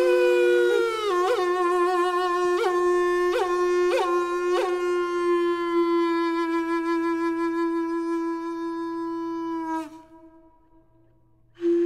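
Traditional Māori taonga pūoro wind instrument holding one long note, with a few quick upward flicks in pitch in the first five seconds. The note fades out and stops for about a second and a half, then a new note starts near the end.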